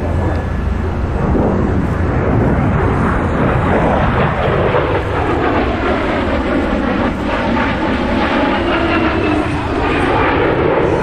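Loud jet noise from an F/A-18E Super Hornet's twin General Electric F414 turbofans as the jet passes close overhead. The noise carries a sweeping tone that falls and then rises again through the middle of the pass.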